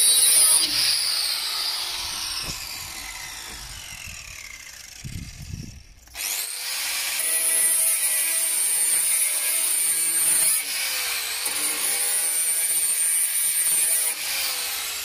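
Angle grinder working on the van's steel bodywork: it starts loud and winds down in pitch, spins up again about six seconds in and grinds steadily, easing off briefly a couple of times.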